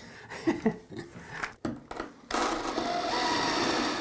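A cordless drill starts a little past halfway in and runs steadily, its glass-and-tile bit boring into ceramic wall tile. Before it come a few short clicks and knocks.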